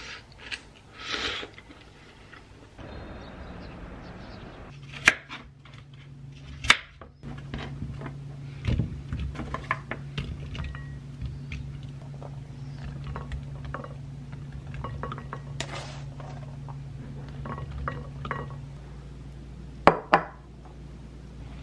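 Kitchen prep sounds: knife and cutlery clinks and knocks on a cutting board and a ceramic plate as fruit and vegetables are cut and arranged, with two sharp clinks close together near the end. A short slurp of noodles comes about a second in, and a steady low hum runs through the middle.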